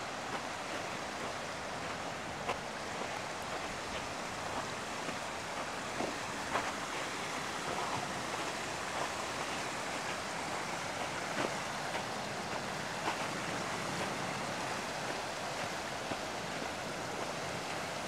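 Steady rushing of a flowing river, with a few faint ticks now and then.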